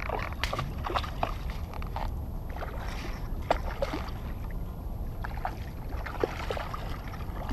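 Water sloshing and gurgling against a plastic kayak hull, with scattered small plinks and splashes over a steady low rumble of wind on the microphone.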